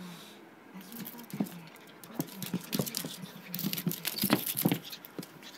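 Shih Tzu puppy scampering about, its claws making quick, irregular taps and scratches on the floor. The taps start about a second in and come thickest in the second half.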